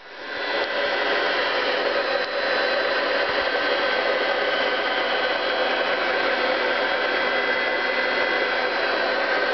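Air from an air pump bubbling vigorously up through water in a PCB bubble etching tank, a steady rushing bubbling that builds up over the first second and then holds.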